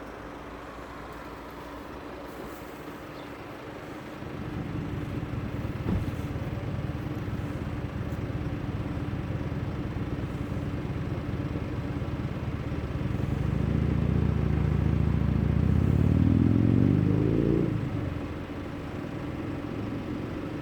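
A motor vehicle's engine running close by. It grows louder and rises in pitch as it accelerates, then fades out about 18 seconds in.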